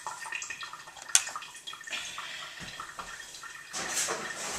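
Running water, with one sharp clack about a second in.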